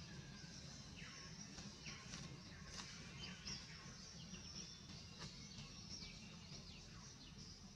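Faint outdoor forest ambience: a low steady rumble with many short, high chirps that sweep downward, scattered irregularly.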